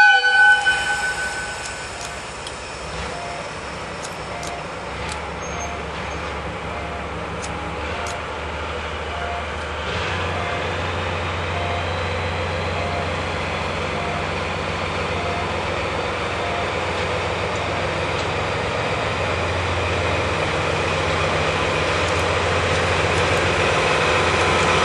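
A DE10 diesel-hydraulic locomotive gives a short horn blast, then its diesel engine runs steadily with a low hum that grows louder as it slowly approaches hauling a heavy-load wagon. A faint ding repeats regularly in the background for much of the time.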